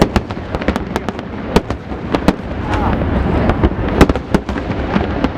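Aerial fireworks display: rapid, irregular bangs and cracks of bursting shells over a continuous low rumble.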